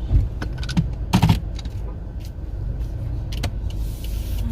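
Steady low rumble of a car's road and engine noise heard from inside the moving car, with a few light clicks and a brief louder knock about a second in.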